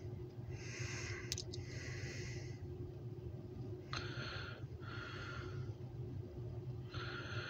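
A person breathing slowly in and out close to the microphone, several soft breaths, over the steady low hum of a parked car's cabin. There are a couple of faint clicks about a second in.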